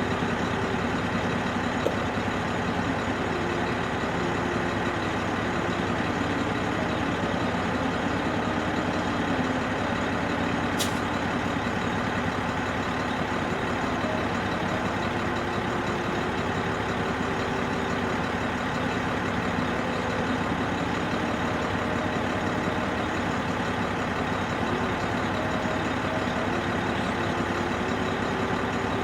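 Large diesel engine of heavy earthmoving equipment running steadily, its tone stepping slightly up and down in pitch now and then.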